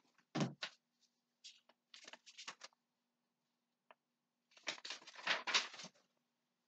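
Sheets of paper rustling and flapping as they are handled, in several short bursts, with a single light click about four seconds in.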